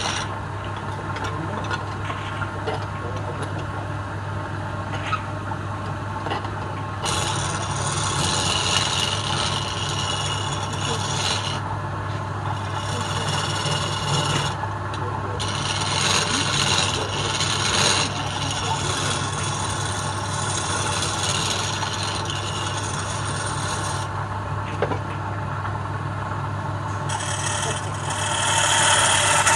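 Wood lathe running with a steady low hum while a hand-held steel turning tool scrapes the spinning palm-wood blank. The scrape is a rasping hiss that swells and fades in stretches of a few seconds as the tool is pressed in and eased off.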